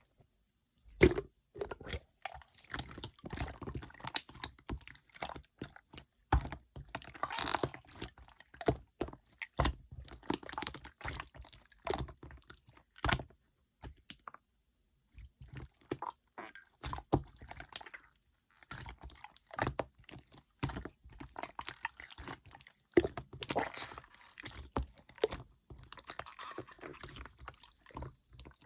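Clear slime being squished and pressed by hand, giving irregular sticky clicks, pops and wet crackles. It stops briefly about halfway through.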